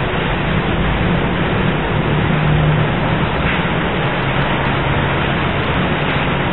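Steady rushing noise with a low droning hum beneath it, unbroken and with no distinct events.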